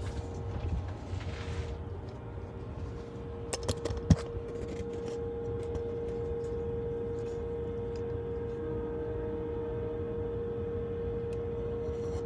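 Metal hand tool clinking on the bolts of a Volvo VNL's crankcase oil separator as they are worked loose, with a few light clicks and one sharp clink about four seconds in. A steady background hum with one constant tone runs underneath.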